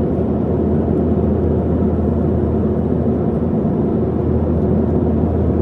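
Steady low rumble of an airliner in flight, engine and airflow noise heard from inside the passenger cabin.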